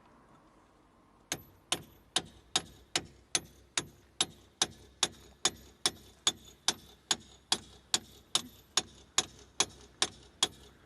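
Hammer blows on the seized brake drum of an old Mercedes MB100 van's wheel, struck in a steady, even rhythm of about two and a half sharp strikes a second starting about a second in, to knock the stuck drum loose.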